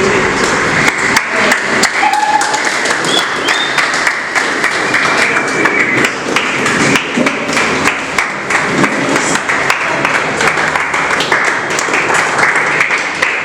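Congregation clapping, many uneven claps over a din of voices.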